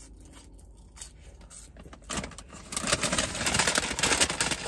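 A takeout bag being rummaged through, rustling and crinkling. It starts about two seconds in and grows louder.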